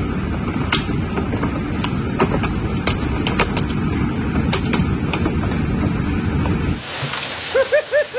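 Hailstones falling hard, with irregular sharp ticks of hail striking hard surfaces over a dense low rumble. About seven seconds in, it changes abruptly to the steady hiss of a heavy downpour of rain and hail.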